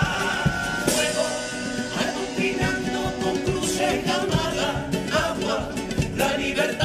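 Male comparsa chorus singing in harmony, holding a long chord that breaks off about a second in; a rhythmic passage follows with steady drum strokes, Spanish guitars and more singing.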